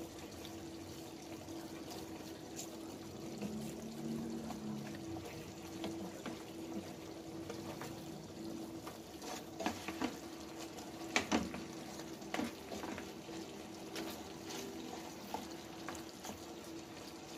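Pork chop steak simmering in its sauce in a frying pan, a soft steady bubbling over a faint steady hum, as sliced onions on top steam in the last stage of cooking. Wooden chopsticks click against the pan a few times as the meat and onions are turned, mostly around the middle.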